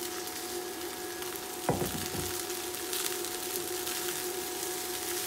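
Rice and vegetables sizzling softly in a hot non-stick pan as cooked rice is added for fried rice, over a steady hum. A single knock comes about two seconds in.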